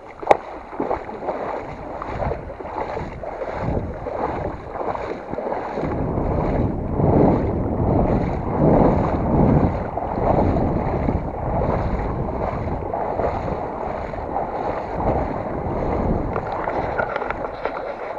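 A person wading through shallow estuary water in boots, water sloshing around the legs with each stride in a steady rhythm of about two strokes a second, with some wind on the microphone.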